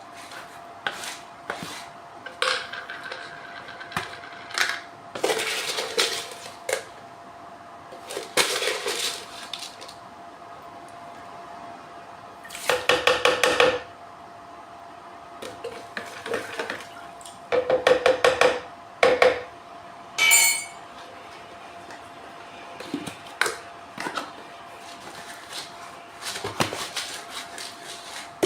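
Hard parts of an HHO generator being handled and a cap being screwed shut: scattered clicks and clatters, with two short rattling runs and a brief squeak, over a steady faint hum.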